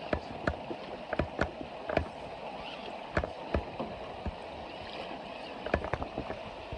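Creek water running steadily, broken by irregular sharp splashes and clacks, a cluster of the loudest about three-quarters of the way through, as radio-controlled rock crawler trucks wade slowly through the water.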